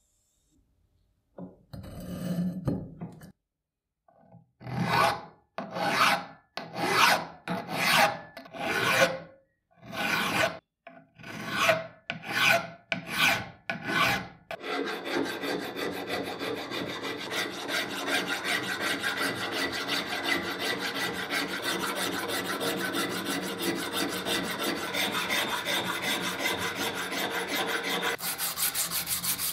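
Metal being hand-filed: a stroke, then about ten separate rasping file strokes roughly a second apart, after which the rasping runs on as one steady, continuous sound.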